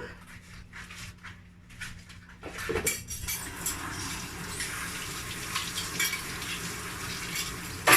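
Dishes and cutlery clinking in a sink as they are washed by hand; from about three seconds in, a tap runs steadily over them.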